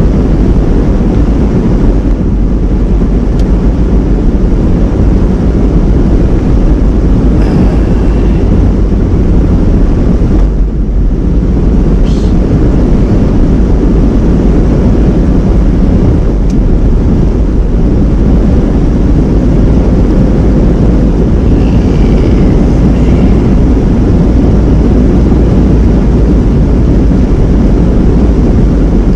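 Steady, loud road and engine rumble heard inside a moving van.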